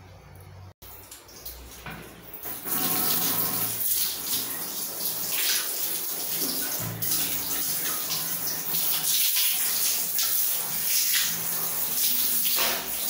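Hand-held shower spraying water onto a wet cat and the bathroom tiles: a steady hiss of spray that comes on about two and a half seconds in, after a quieter start.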